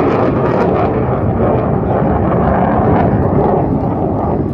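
Jet aircraft passing overhead at an air show: a loud, steady roar of jet engine noise with no break.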